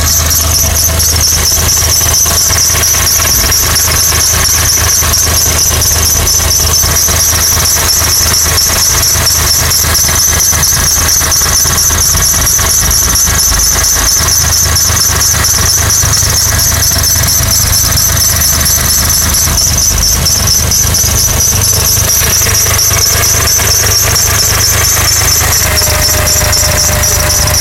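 A 2006 Honda Accord's engine running steadily with a constant high-pitched squeal over its low hum.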